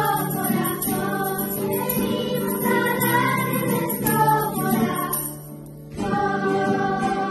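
Children's choir singing a Spanish Christmas carol over an instrumental backing. The sound drops away briefly about five seconds in, then the voices come back on long held notes.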